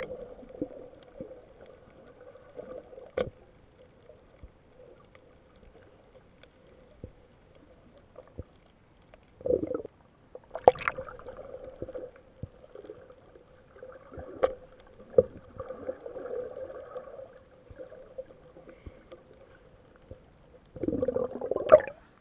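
Muffled underwater sound picked up by a submerged camera: a steady low hum with scattered sharp clicks, and louder stretches of water gurgling about ten seconds in and again near the end.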